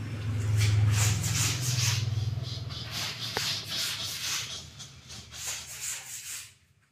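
Plastic toy car being handled and scraped over a tile floor: repeated short rasping rubs over a low hum that fades away near the end.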